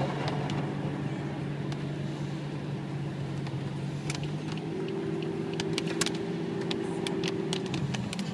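A car driving on a wet road, heard from inside the cabin: a steady engine hum over tyre noise, with scattered sharp ticks of raindrops hitting the windshield. A higher steady hum joins just past the middle for about three seconds.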